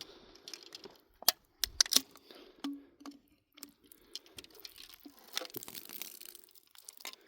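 Aluminium beer can being handled and shaken with a spent .22 bullet loose inside: irregular sharp clicks of the bullet against the can, mixed with crinkling of the thin metal.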